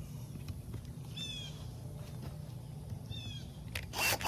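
A bird chirping twice, each time a quick run of high, falling notes, over a low steady hum. Near the end a power driver starts whirring.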